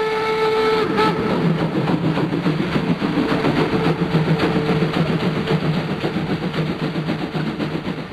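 Steam train sound: a steam whistle blowing, ending about a second in, followed by steady, rapid rhythmic chuffing and clatter of the locomotive running.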